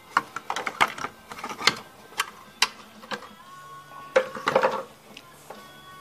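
Plastic air intake tube and elbow being worked loose from the throttle body of a 2005 Dodge Stratus 2.7 V6, with engine off. Scattered sharp clicks, knocks and rattles of the plastic parts are heard, with a louder cluster about four seconds in.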